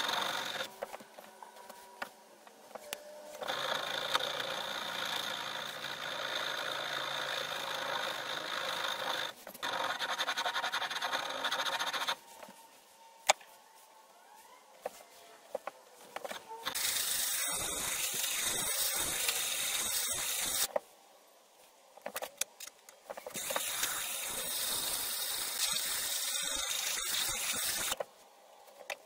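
Hand file rasping along the steel bit of a Collins double-bit axe head held in a C-clamp, while the edge is being sharpened. It comes in several long scraping stretches with pauses between them, and the later stretches sound brighter and harsher.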